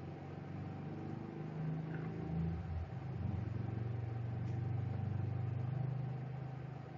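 A low, engine-like drone that shifts in pitch and grows louder from about three seconds in, over a steady faint hum.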